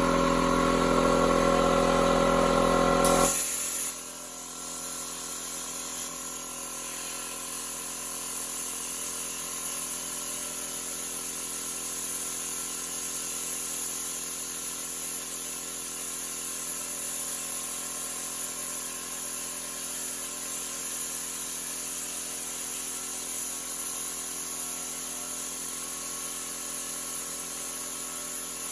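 CNC plasma cutting machine running. A loud hum with several steady tones cuts off suddenly about three seconds in, leaving a steady high hiss.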